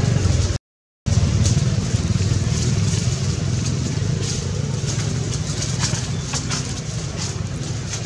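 A low, steady, motor-like rumble that slowly fades, with faint scattered ticks over it. The sound drops out completely for about half a second just after the start.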